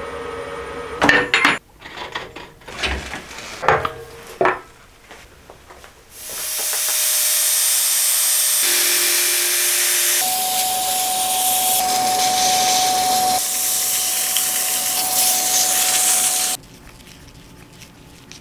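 A few knocks and clatters, then a handheld power sander running against a cork-and-epoxy-resin vase spinning on a wood lathe: a loud steady hiss with a steady whine, stopping suddenly near the end.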